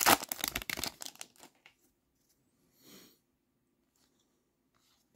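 Foil trading-card pack crinkling and tearing as it is ripped open, loud for the first second and then dying away. A brief soft rustle follows about three seconds in.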